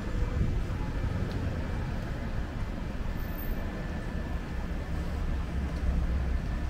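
Steady low rumble of downtown street traffic, with no single sudden event standing out.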